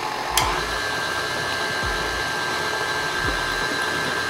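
KitchenAid Classic Plus stand mixer running steadily, its flat beater working cream cheese batter while an egg is added. A single click comes about half a second in, after which a steady high motor whine holds.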